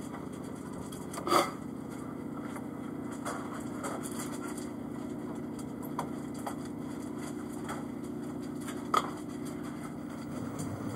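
A steady low mechanical hum with a few sharp clicks, the loudest about a second in and another near the end.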